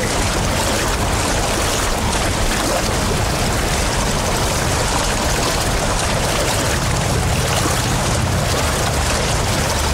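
Steady rushing noise of water and wind from the racecourse as the kayaks are paddled past.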